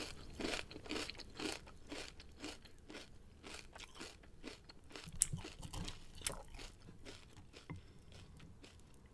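Someone chewing crunchy food: soft crunches about twice a second, fairly even.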